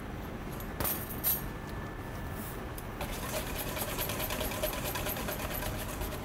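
Wire whisk beating a mayonnaise coleslaw dressing in a stainless steel bowl, a fast, even scraping rhythm that starts about halfway through. Before it, two short clinks about a second in, over a steady kitchen hum.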